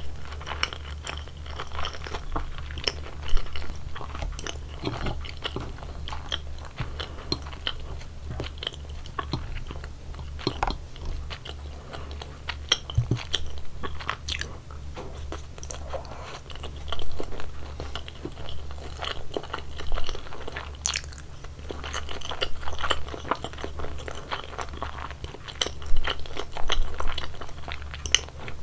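Close-miked chewing and biting of sushi: a steady run of small wet clicks and crunches, with a few louder bites along the way.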